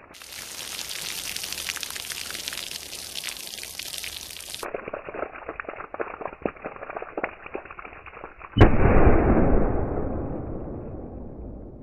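Water pouring and splattering off a table onto the ground. About eight and a half seconds in comes a single loud shot from a .44 Remington 1858 black-powder revolver, loaded with a full charge of Swiss No.1 FFFFg powder, which bursts a water-filled plastic jug; the report echoes and fades over about three seconds.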